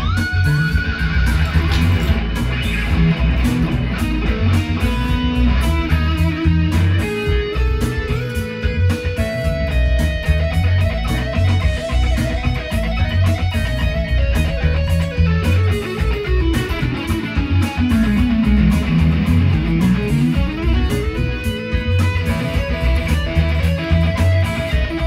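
Electric guitar (a Fender Stratocaster) improvising lead lines in Mixolydian mode, with a steady low bass line underneath. Past the middle, one note glides slowly down in pitch and then back up.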